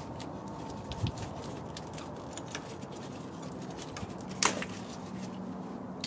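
Light clicks and rattles of plastic wiring-harness connectors and wires being handled, over a steady background hiss, with one sharper click about four and a half seconds in.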